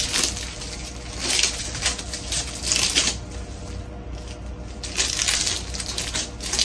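Thin plastic crinkling and rustling in irregular bursts as a crumpled blue air-assist hose is unwrapped and pulled open by hand.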